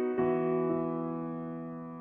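Background piano music: a chord struck just after the start and left to ring, fading slowly.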